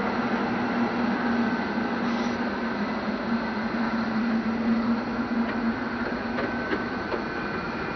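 Steady whir and hiss of the International Space Station's cabin ventilation fans and equipment, with a low hum and a thin high tone running through it. A few faint clicks come in the second half.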